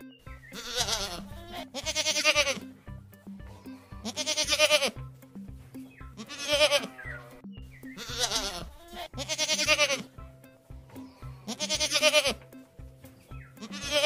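Goat bleating repeatedly, about eight quavering bleats of under a second each, over background music with a steady beat.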